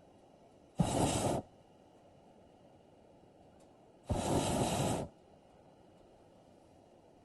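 Air hissing out of a balloon in two short bursts, each starting and stopping suddenly, the second about a second long.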